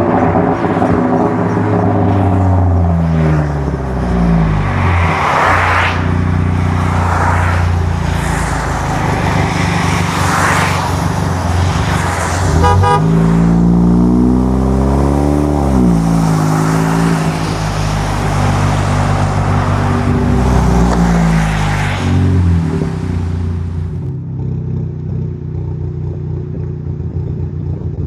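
Chevy Cruze engine and exhaust accelerating through the gears: the engine note climbs, drops back at each shift and climbs again, with a rushing noise over it. Near the end it settles into a steadier, duller drone.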